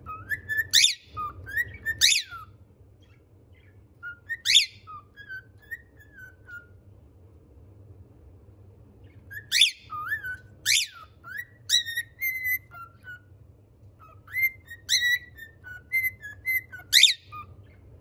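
Male pied cockatiel singing: four phrases of clear whistled notes with quick rising and falling glides and sharp chirps, with short pauses between phrases.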